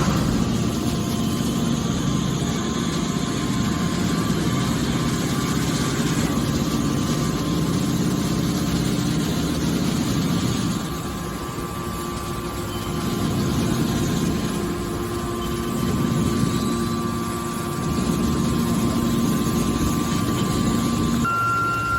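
Hydraulic metal baler running: a steady mechanical hum with a constant tone over it. It drops in level about halfway through, then builds back up.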